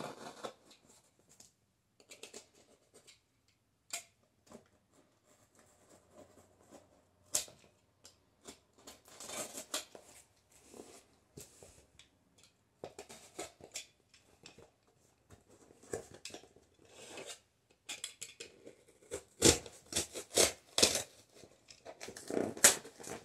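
Snap-off box cutter slicing through packing tape and cardboard on a shipping box, with tape tearing and cardboard scraping and rustling in irregular bursts that are loudest in the last few seconds.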